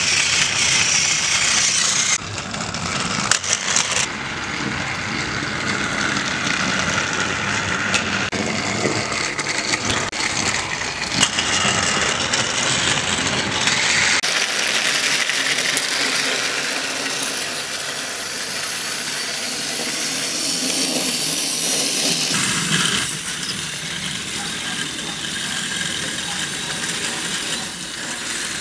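TOMY Trackmaster battery-powered toy trains running on plastic track: a steady motor-and-gear whir mixed with the rattle and clicking of wheels and trucks over the track joints. The sound changes character abruptly a few times.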